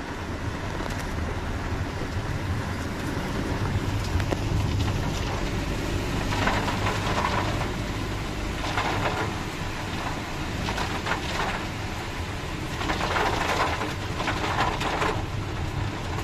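Heavy rain heard from inside the cabin of a moving Maruti Suzuki Alto K10: rain hissing on the roof and windscreen over a steady low engine and tyre hum on the wet road. The hiss swells louder several times.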